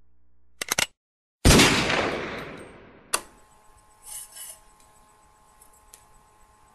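Gunshot sound effect: a few quick clicks, then one loud, sudden bang with a long fading tail, followed by a single sharp click.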